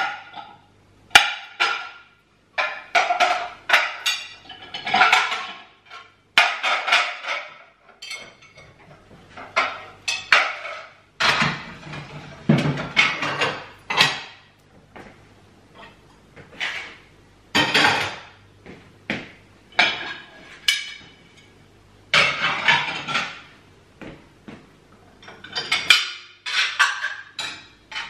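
Ceramic plates and glasses clinking and knocking as they are taken out of a dishwasher and stacked into kitchen cupboards: a long string of separate clatters, many ringing briefly.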